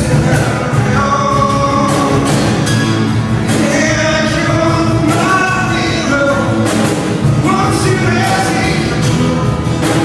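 Live acoustic band: several strummed acoustic guitars with a male lead singer singing a melody over them.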